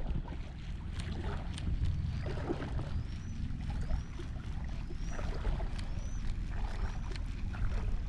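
Shallow seawater sloshing and lapping, with wind rumbling on the microphone and a few faint high chirps in the middle of the stretch.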